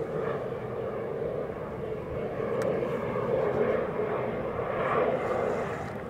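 A fixed-wing aircraft passing over: a steady engine rumble that swells to its loudest about five seconds in, then eases.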